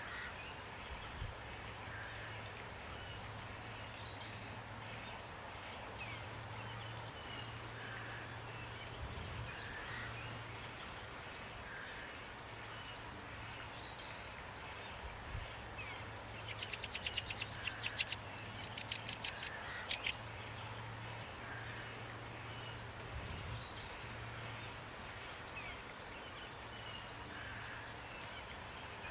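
Birds singing: short, high, falling whistled phrases repeated every few seconds, with a dry rattling trill near the middle. Behind them run a steady hiss and a low hum.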